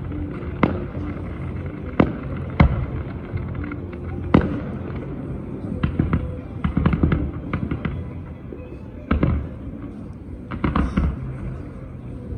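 A fireworks display: single sharp bangs of bursting shells a second or two apart, then clusters of quick crackling pops, with a loud bang about nine seconds in.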